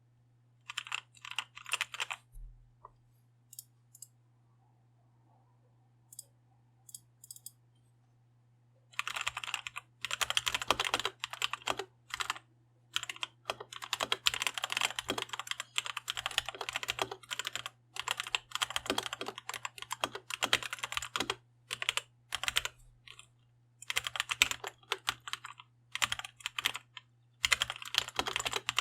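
Typing on a Red Square Keyrox TKL mechanical keyboard with Gateron Red linear switches. A few scattered keystrokes at first, then fast runs of typing from about a third of the way in, broken by short pauses.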